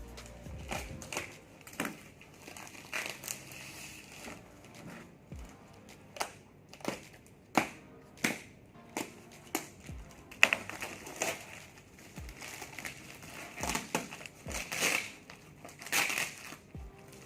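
Plastic courier wrapping of a parcel being handled and torn open by hand, crinkling and crackling in irregular bursts.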